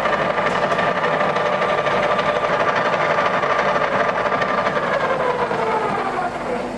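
Metal lathe boring a recess with a homemade R6M5 high-speed-steel boring tool at 185 rpm: a loud, steady cutting noise with a ringing tone over it. The tone slides down in pitch and the cut stops shortly before the end, the boring pass finished.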